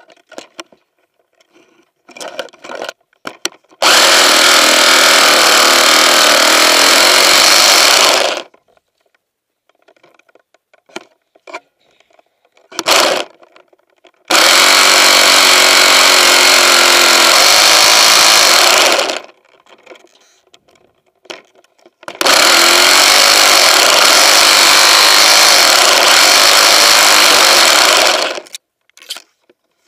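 Powered pole saw running at full speed through branches in three long bursts of about four to six seconds each, with brief knocks and rustling between the bursts.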